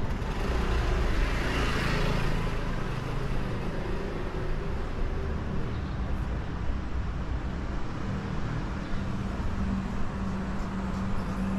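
A motor scooter passing close by, its engine and tyre noise swelling over the first two seconds and fading away, then a steady low hum for the rest.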